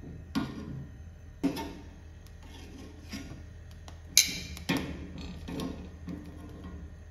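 Metal kitchen tongs clicking and clacking against a gas stove's grate while jalapeño peppers are turned over the burner flame to char. There are about six separate clicks, the loudest a sharp clack about four seconds in, over a low steady hum.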